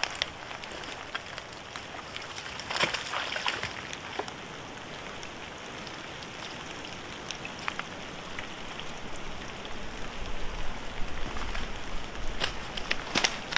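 Steady rain pattering in wet woodland, with brief crackles and knocks of dead wood about three seconds in and again near the end as a long dead branch is moved into place.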